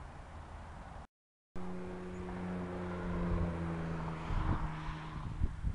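A steady, low pitched engine drone that breaks off briefly for a moment of silence, returns, and fades out about three seconds later, followed by a few dull knocks.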